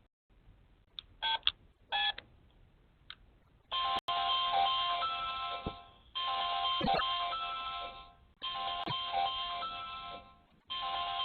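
Apartment-block door intercom panel: a few short keypad beeps as a flat number is dialled, then the panel's electronic calling melody repeating in about two-second bursts while the flat is rung.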